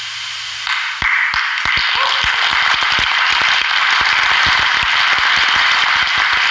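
Audience applauding and cheering, the crowd noise building and breaking into dense, loud clapping about a second in.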